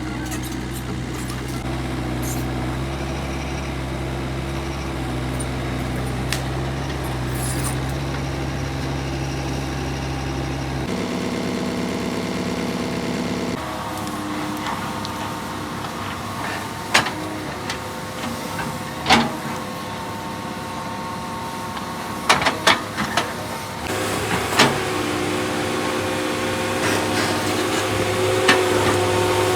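Excavator diesel engine running steadily, with several sharp clanks in the second half and sudden shifts in the engine's tone a few times.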